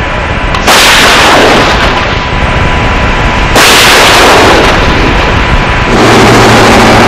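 Two artillery shots from M109 155 mm self-propelled howitzers, about three seconds apart, each a sudden loud blast with a long rumbling echo. Near the end a heavy vehicle engine starts running steadily.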